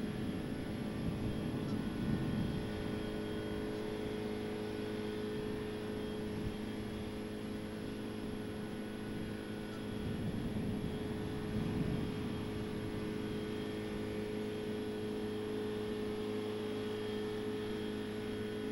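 Steady industrial hum of an isobutanol plant's machinery: several held tones over a low rumble, swelling slightly about two seconds in and again around eleven to twelve seconds in.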